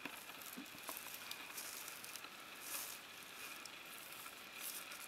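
Faint rustling and scraping of paracord being pulled and wrapped around a tree trunk, the cord rubbing over the rough bark, with a few soft ticks.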